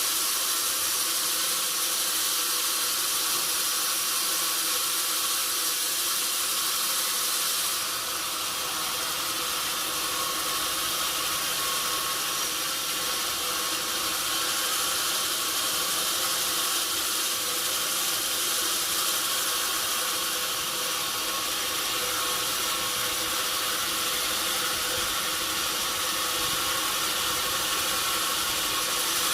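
Sawmill machinery running steadily: a continuous hissing noise with a faint hum, shifting slightly about eight seconds in.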